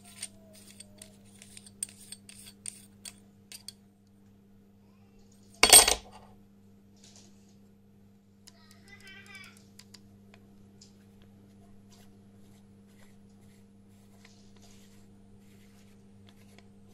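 Metal rings and barrel of a Wollensak Raptar copy lens clicking and scraping in the hands as it is unscrewed, with one loud metallic clack about six seconds in. A steady low hum runs underneath.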